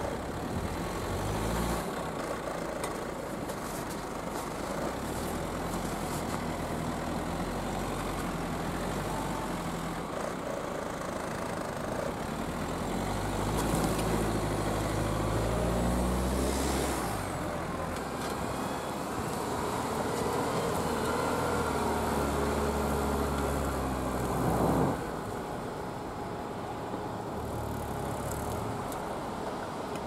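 GAZ Sobol 4x4 van engine working hard in deep forest ruts, its revs rising and falling as the vans try to pull a stuck van free. The revs drop back suddenly about 25 seconds in.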